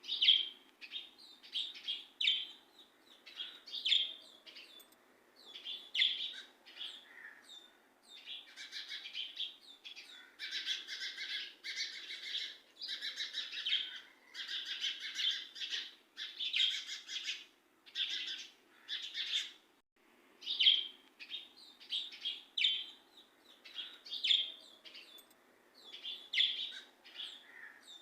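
Birds chirping and twittering in short repeated calls, busiest through the middle.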